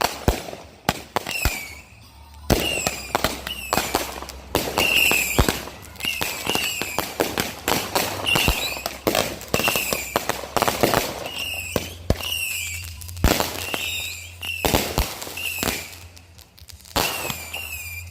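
Consumer fireworks going off in rapid succession: many sharp bangs and crackles, with short high whistles that drop in pitch recurring every second or so.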